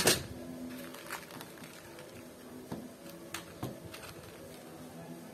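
Tiny plastic mini bricks clicking and rattling against a clear plastic tray as fingers sort through them. A sharp plastic knock comes right at the start, then a few scattered clicks, over faint background music.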